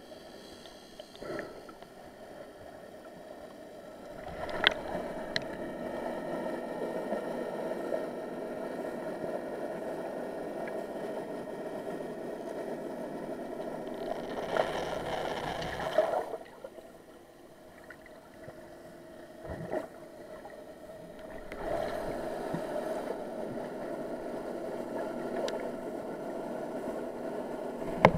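Muffled underwater noise picked up by a submerged camera: a steady dull rush of water, dropping quieter for a couple of seconds past the middle, with a few faint clicks.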